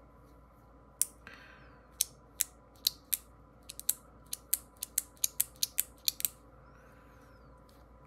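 Small metal parts of a magnetic fidget toy being handled during assembly: about eighteen sharp clicks and snaps, a few at first and then coming quickly, about four or five a second, from about four seconds in until they stop after about six seconds, with a faint scrape or two.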